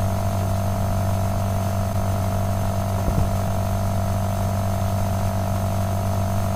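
Steady electrical mains hum on the recording, a low buzz with a faint high whine above it, and a brief click about three seconds in.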